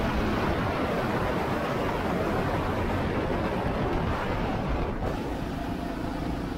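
Wind rushing over the microphone on a moving motorcycle, with the engine running underneath. About five seconds in the rush eases and a steadier engine note comes through.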